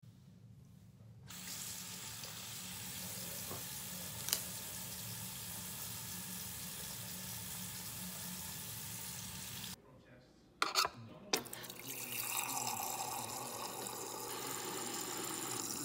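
Bathroom tap running into a sink for about eight seconds, then stopping. After a few clicks, a refrigerator door dispenser runs water into a drinking glass.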